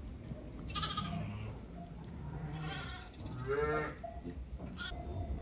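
Sheep bleating: a short bleat about a second in, then a longer, wavering bleat between three and four seconds in, and another brief call near the end.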